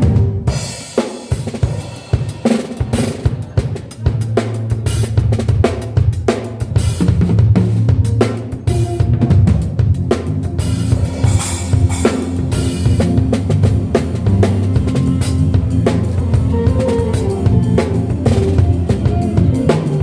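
Drum kit played with bass drum, snare and cymbals over a low bass line; it is sparser for the first few seconds, then fuller.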